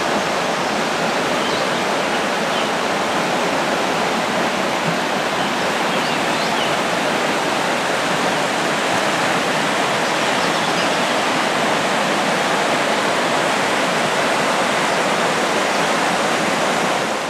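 Fast-flowing mountain river rushing over rocks in whitewater, a steady, loud, even rush of water.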